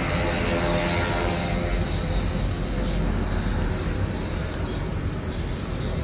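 Steady low engine rumble, like a passing motor vehicle, slowly fading.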